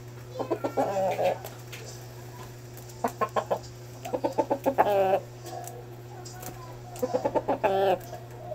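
Young white rooster clucking in four short bouts. Each bout is a quick run of clucks ending in a longer note.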